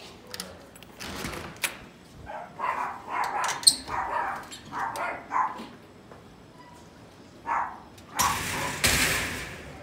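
Clicks as a security screen door opens, then a dog barking in a quick run of about seven short barks and one more a couple of seconds later. A loud rushing scrape lasts about a second near the end.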